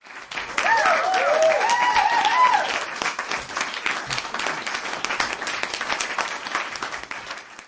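Audience applauding, with a few whoops and cheers in the first few seconds; the clapping is loudest at the start and slowly dies down toward the end.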